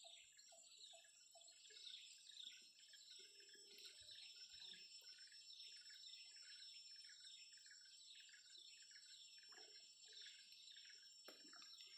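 Faint, fast, evenly repeated high chirping from a small animal, about three or four chirps a second. A few short, lower notes repeat alongside it in about the first second and a half.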